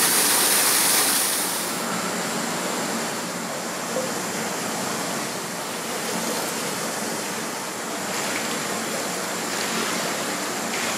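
Waterfall spilling and splashing into a pool. A loud hissing rush for the first couple of seconds settles into a softer, steady rush of water.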